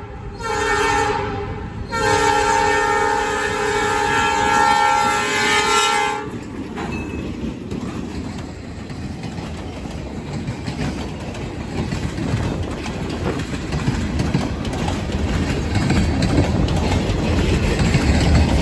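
An EMD GP38-2 diesel locomotive sounds its horn: the tail of one blast, a short blast, then a long blast held for about four seconds. The train then rolls past close by, with the steady rumble and clatter of empty pulpwood and bulkhead flatcar wheels over the rail joints, growing louder near the end.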